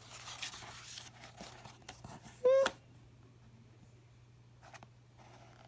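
Paper rustling of a picture book's page being turned, for about two seconds. About halfway through comes a short voiced sound from the reader.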